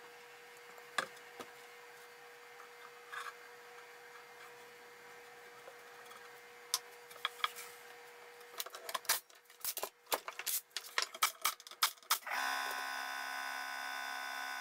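Wooden shims and boards being handled on a plywood pallet top: a few light taps, then a quick run of wooden knocks and clatter. About twelve seconds in, a small motor starts and runs steadily.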